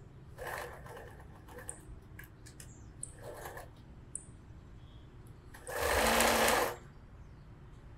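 Sewing machine running in a short stitching burst of about a second, around six seconds in, as a hem is sewn. Two fainter short sounds come earlier.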